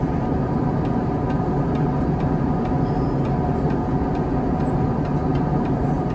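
Steady jet noise inside an airliner cabin in flight: a constant deep rush with a faint hum.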